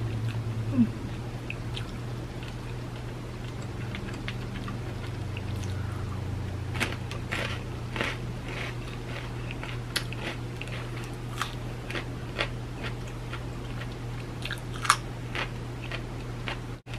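A person chewing close to the microphone, eating jengkol stew and kerupuk crackers by hand, with scattered short crunches and mouth clicks over a steady low hum.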